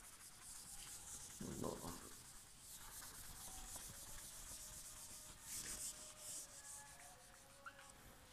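Handheld whiteboard eraser rubbing across a whiteboard, wiping off a marker drawing in faint, uneven strokes.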